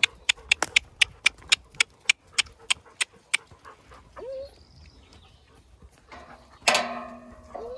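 Alpacas humming, in short rising hums, among a herd of alpacas and sheep. One loud animal call of about a second comes near the end. A quick run of sharp clicks, about three a second, fills the first few seconds.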